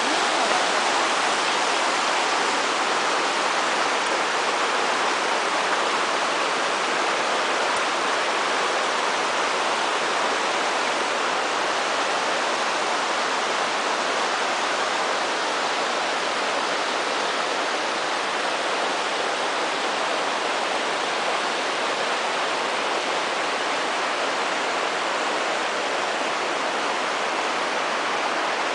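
Shallow, stony river rushing steadily over rocks and a low stone weir.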